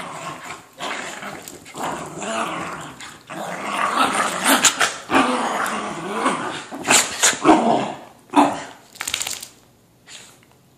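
Two dogs play-wrestling, a whippet mix and its smaller brother, growling continuously with a few sharp barks; it dies down near the end.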